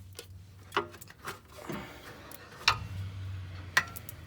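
Pliers clicking and tapping on a brake caliper as the piston is squeezed back into its bore: a handful of sharp metallic clicks, the two loudest near the end.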